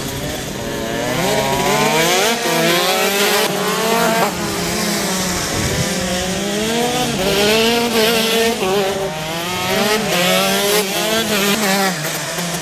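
Several 125 cc two-stroke racing kart engines going past, their pitch repeatedly rising under acceleration and falling off, with more than one engine heard at once.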